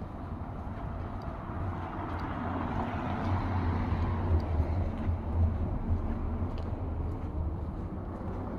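A motor vehicle's low engine hum that swells toward the middle and then eases off, as of a vehicle passing by.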